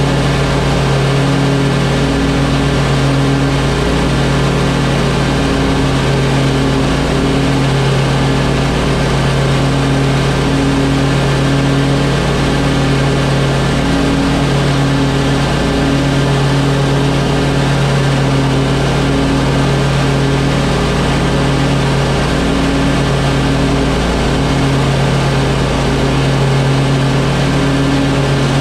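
Stand-on zero-turn lawn mower's engine running steadily while the mower cuts grass, a loud, unbroken hum.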